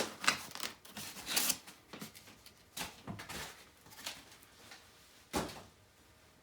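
Packing materials being handled while unpacking a shipped typewriter: scattered rustles and light knocks, with a louder rustle about five seconds in.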